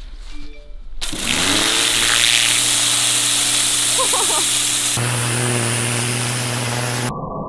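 Pressure washer starting about a second in: its motor hums up to speed and then runs steadily under the loud hiss of the water jet spraying a fish to strip off its scales. The sound turns muffled near the end.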